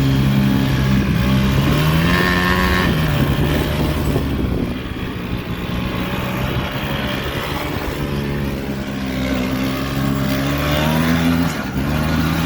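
Motor vehicle engine running and revving, its pitch rising and falling a few times.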